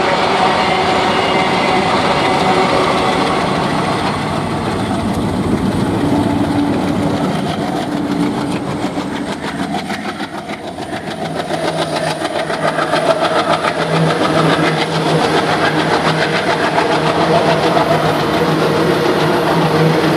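Twin ALCO WDG 3A diesel locomotives, with 16-cylinder ALCO 251 engines, running under load as they pass. About halfway through the locomotives give way to loaded covered freight wagons rolling by, their wheels clattering rhythmically over the rail joints.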